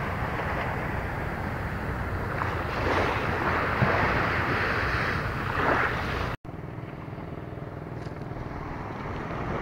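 Wind on the microphone with small waves washing on a coral-rubble shore, a steady rushing noise. It cuts out for an instant about six seconds in and then carries on somewhat quieter.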